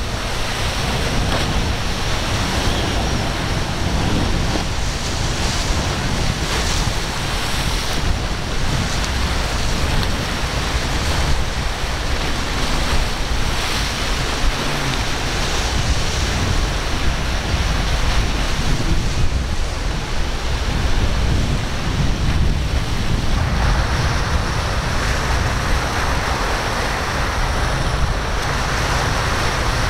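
Rough sea surf and the rush of boats' wakes and spray, with wind buffeting the microphone in a steady low rumble. The hiss grows brighter about three-quarters of the way through.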